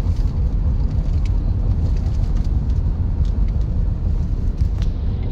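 Steady low rumble of a car driving on a paved road, heard from inside the cabin, with a few faint clicks.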